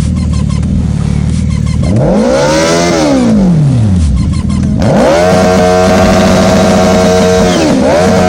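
Suzuki Hayabusa's inline-four engine under way: it runs low, revs up and back down, then climbs to a high steady pitch, dipping briefly near the end before holding again.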